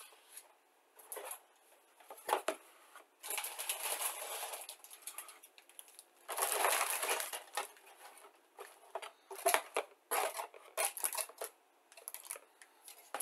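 Paper instruction sheets rustling as they are handled, then plastic model-kit sprues clicking and rattling against each other in a cardboard box.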